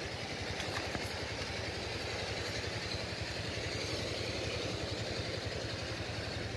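A small engine running steadily at idle, a fast, even low throb.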